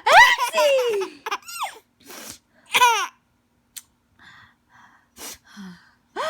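Baby laughing: several high squealing laughs whose pitch slides down, the loudest right at the start and others about one and a half and three seconds in, with short breathy gasps in between.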